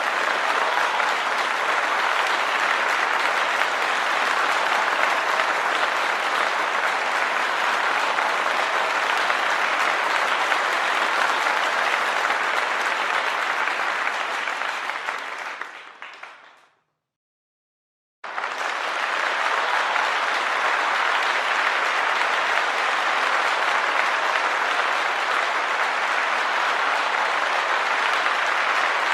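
A crowd applauding with dense, steady clapping that fades out a little over halfway through. After a second or so of silence, a second round of applause starts abruptly and carries on steadily.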